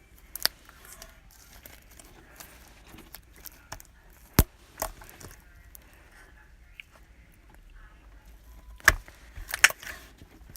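Homemade glitter slime being squeezed and pressed by hand, giving scattered crunchy clicks and pops. The loudest click comes about four seconds in, with a few more close together near the end.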